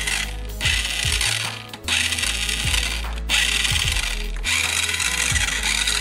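Toy remote-control car's small electric drive motor and plastic gears whirring as its wheels spin freely, starting and stopping several times.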